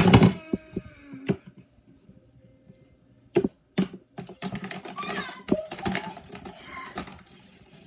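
Small plastic toys knocked about on a table: one loud sharp knock at the start, a few separate clicks, then about three seconds of quick, dense clattering taps.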